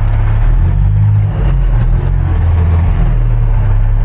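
Semi-truck's diesel engine running under load as the truck is backed up, heard from inside the cab: a steady low drone whose note rises about half a second in and shifts again around two to three seconds in.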